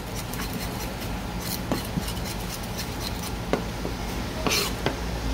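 Knife working on small gizzard shad on a cutting board: scattered light taps and scrapes, with one longer, louder scrape about four and a half seconds in, over a steady low hum.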